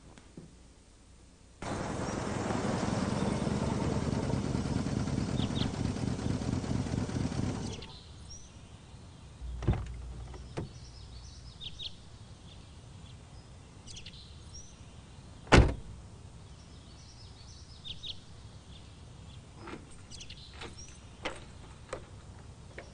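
A loud, steady noise, of the kind a running vehicle makes, starts suddenly and cuts off after about six seconds. Then birds chirp faintly over a quiet background, with several sharp knocks, one about two-thirds of the way through much louder than the rest.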